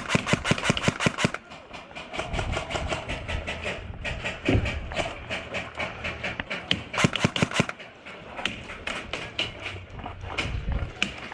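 Airsoft guns firing in rapid full-auto bursts, an even rattle of shots several a second, with short breaks between bursts and a few single shots near the end.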